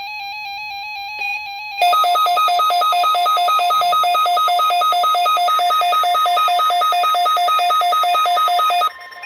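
Weather alert radio's electronic alarm: a loud two-tone beep alternating high and low about four times a second. It starts about two seconds in and cuts off suddenly near the end, after a softer steady warbling tone.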